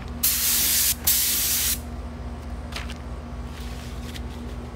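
Compressed-air paint spray gun spraying paint: two hissing bursts of under a second each with a brief gap between, then a few short, fainter spurts. A steady low hum runs underneath.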